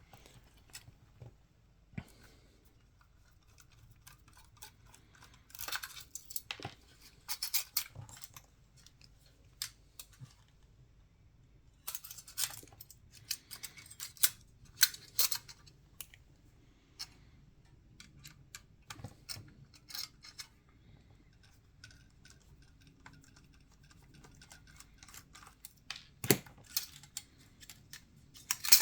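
Small clicks, taps and scrapes of tools and parts while a Canon EOS 5D DSLR is being taken apart, coming in several short clusters with quiet gaps between.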